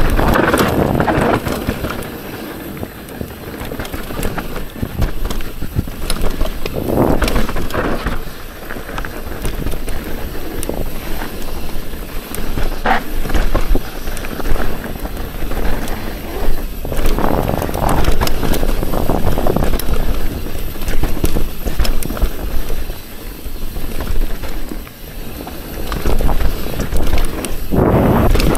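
Mountain bike descending dirt forest singletrack: tyre noise and chatter over the dirt and roots, with wind buffeting the action camera's microphone. It rises and falls in surges as the bike speeds up and slows.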